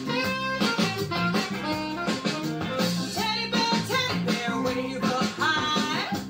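Upbeat children's dance song playing: a singer over guitar with a steady beat.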